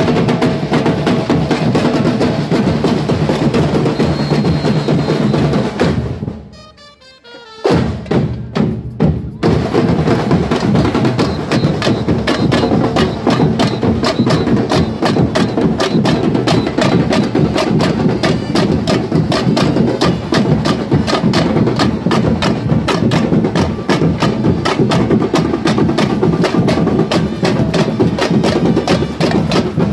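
Street-style percussion band of bass drums, snare drums and tambourines playing a fast, steady beat. About six seconds in the playing stops dead for about a second, then comes back in with a few single strokes before the full beat picks up again.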